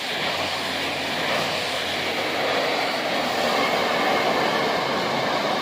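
A rail grinding train passing, its diesel engines and wheels on the rails making a steady, loud rushing noise with a low hum underneath.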